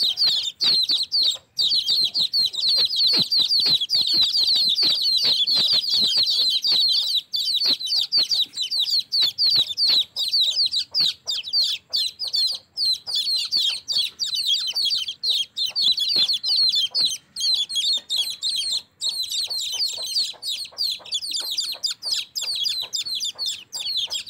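A flock of young chicks peeping nonstop: many high-pitched cheeps overlapping in a dense, unbroken chorus.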